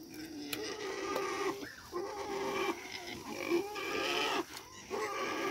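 Farm animals calling: long, steady cries one after another with short breaks between them.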